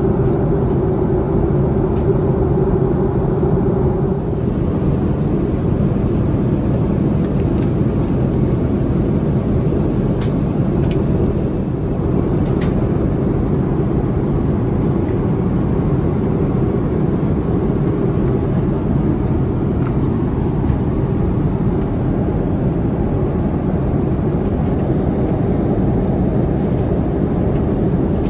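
Cabin noise of an Airbus A350-900 in flight: a steady low rush of airflow and its Rolls-Royce Trent XWB engines. There are a few faint clicks around the middle.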